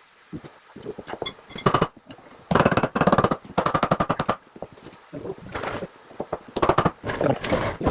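Rapid mechanical hammering clicks in several short bursts of about a second each, from tool work on a backhoe's dipper cylinder fittings.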